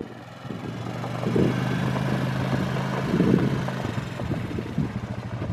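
A Honda Foreman ATV's 499 cc single-cylinder engine idling steadily. It grows louder over about the first second.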